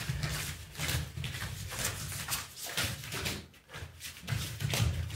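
Bare feet stepping and thudding on a hard rehearsal-room floor, irregular knocks several times a second over a low rumble of moving bodies.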